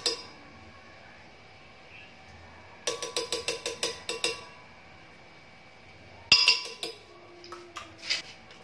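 A spoon clinking against the blender jar as mango flesh is scraped off into it. The clinks come in a quick run of about eight taps, then a sharper knock and a few scattered clinks near the end.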